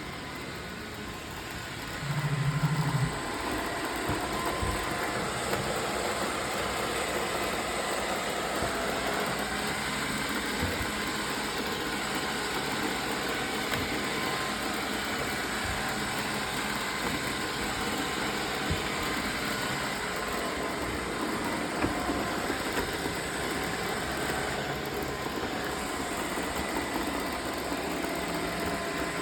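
Roomba robot vacuum running with a steady motor and brush whir and a few scattered knocks. About two seconds in there is a brief loud low hum lasting about a second.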